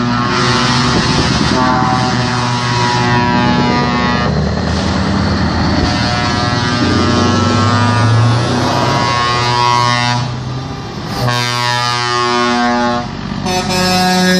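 Lorries in a truck parade sounding their air horns as they pass, several long blasts of different pitches overlapping one after another over the noise of the trucks. The horns let up briefly about ten to eleven seconds in.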